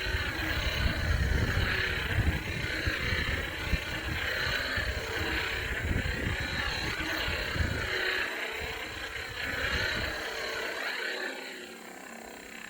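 Lightsaber sound card with a Golden Harvest v3 board playing its blade hum through the hilt speaker, the pitch sweeping up and down with each smooth-swing motion. Near the end the swinging settles and a quieter steady hum remains.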